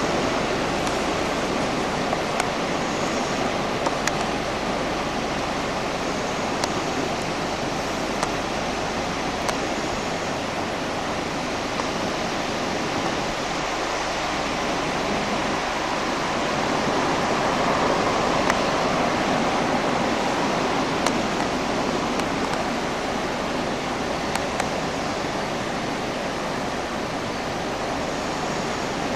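Steady rushing wash of sea surf, swelling a little louder for a few seconds past the middle.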